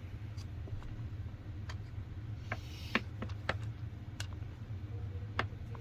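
Scattered sharp plastic clicks and a few small creaks as the clamshell housing of a cordless tire inflator is pulled apart by hand, the loudest click about three seconds in, over a steady low hum.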